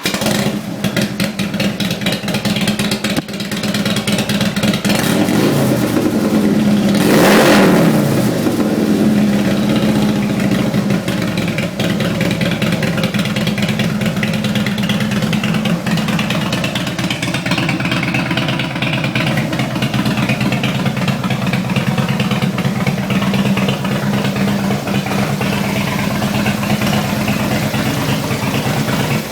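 Harley-Davidson Ultra Classic's Twin Cam 103 V-twin engine running through a Thunderheader exhaust with a deep rumble. It swells to its loudest about seven seconds in, then settles into a steady run.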